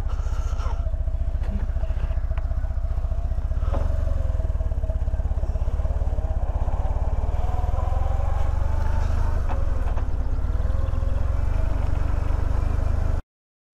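BMW R1200C's boxer twin engine running as the motorcycle rides away, with a low, even pulsing rumble; its pitch climbs slowly between about four and ten seconds in, then drops. The sound cuts off suddenly near the end.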